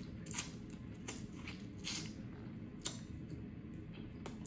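Eating snow crab legs close to the microphone: wet mouth smacks and short sharp clicks of the shell as the meat is bitten and pulled out, about six in all, spread unevenly.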